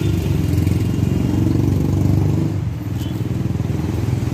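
Steady low rumble of a motor vehicle moving along a city road, with a single brief click about three seconds in.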